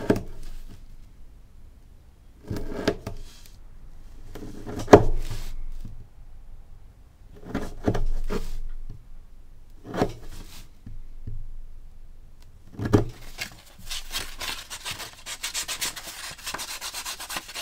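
A sharp chisel is pressed down through binder's board to pare a rounded corner: about six separate crunching cuts, two to three seconds apart. Near the end these give way to rapid back-and-forth rubbing as the freshly cut board edge is smoothed.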